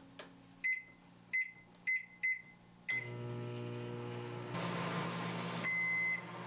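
Microwave oven keypad beeping five times as the cooking time is entered, then the oven starting and running with a steady hum. A single longer beep sounds near the end.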